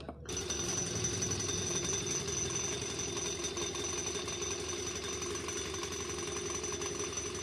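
Hero Pleasure scooter engine running with a lot of steady mechanical noise, which the mechanic traces to the loose cover over the self-starter pinion that meshes with the crankshaft.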